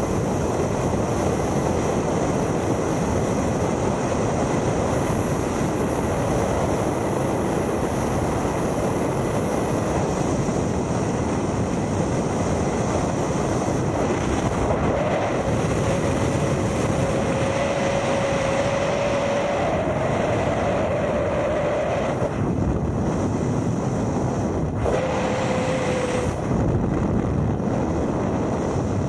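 Steady rush of wind across a helmet-mounted camera's microphone in wingsuit freefall. A faint whistling tone comes and goes past the middle.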